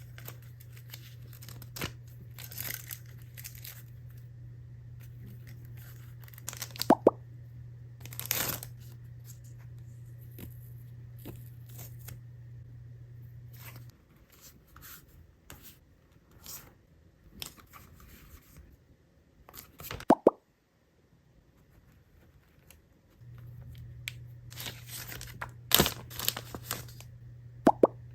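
Small packaged items being unboxed by hand: packaging tearing and crinkling, with scattered sharp taps and clicks as items are handled and set down. A longer rustle comes about eight seconds in, and a burst of rustling and tapping near the end.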